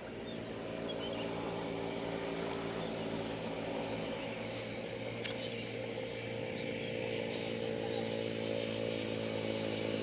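A motor running steadily with an even, low hum, with one sharp click about five seconds in.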